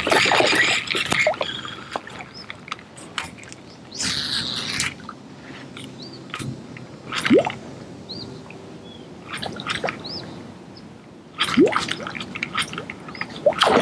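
Small Pop-R P50 topwater popper worked quickly across the water surface: a run of short, wet pops and spits. About four seconds in there is a louder hissing burst lasting about a second.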